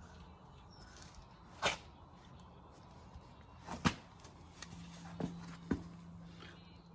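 Four scattered sharp knocks or taps, the loudest just before halfway, with a faint steady low hum coming in past the middle.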